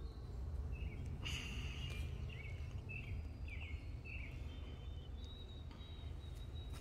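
A bird chirping outdoors in a run of short calls, about two a second, then a thin high tone held on near the end, over a steady low rumble.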